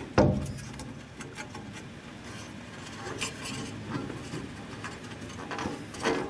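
Trunk-lid hinge tension bar being worked into place by hand: a sharp knock just after the start, then rubbing and scraping with light clicks, and another knock near the end.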